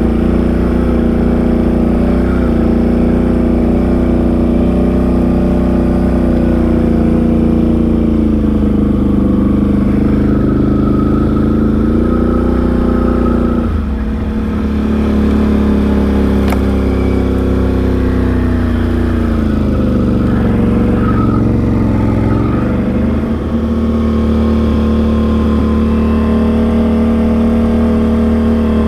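Can-Am Outlander XMR 850 ATV's V-twin engine running as it rides at a steady pace. The engine note drops and climbs back a couple of times, about halfway through and again near the end, as the rider eases off and gets back on the throttle.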